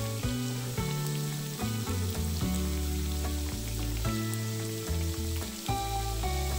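Yeast-dough potato patties frying in sunflower oil in a skillet, with a steady sizzle of bubbling oil. Background music runs underneath: held notes that change step by step over a bass line.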